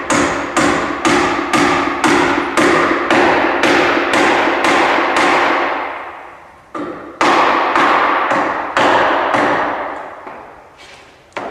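Hammer blows on heavy timber, about two a second, each strike ringing briefly. The blows stop for a moment a little past halfway, a second shorter run follows, and one last blow lands near the end.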